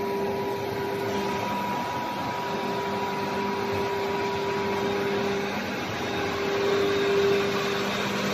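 Steady hum and whir of running production-line machinery, with a few held tones that drop out and return a couple of times.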